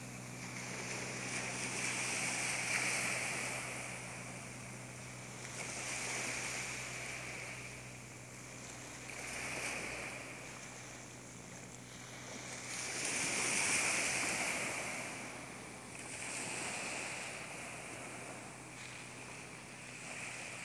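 Small waves breaking and washing up a sandy beach, the surf swelling and fading about every three to four seconds, loudest about two-thirds of the way through. A faint low hum runs underneath.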